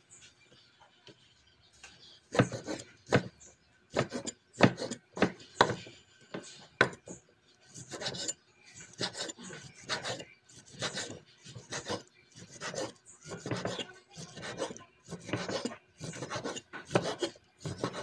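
Cleaver slicing raw beef on a round wooden chopping board: short cutting strokes with the blade rasping through the meat and knocking on the wood, starting about two seconds in and coming roughly every half-second, unevenly.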